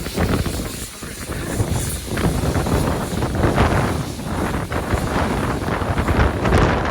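A train running, with its low rumble under wind buffeting the microphone.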